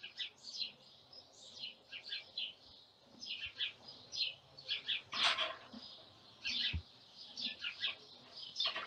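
Small birds chirping: a quick, busy run of short, high chirps, several a second, with one louder call about five seconds in.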